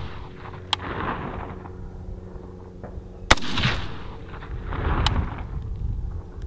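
Two rifle shots from a Faxon ARAK-21 gas-piston rifle fitted with a .300 Blackout barrel, one about a second in and one about two and a half seconds later, each followed by a long rolling echo.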